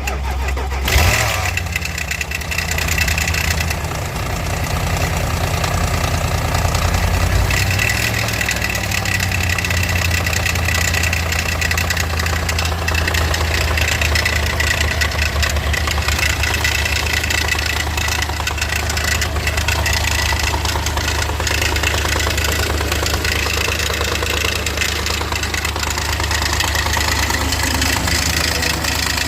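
BMW N62 4.8-litre V8 engine idling steadily with a knocking noise, the fault the owner is showing. There is a brief louder burst about a second in.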